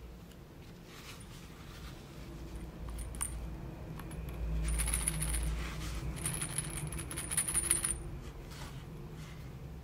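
Small gold jingle bells on a yarn-wrapped reindeer Christmas ornament jingling as it is handled: a few light jingles at first, then a busy jingling for about three seconds from midway.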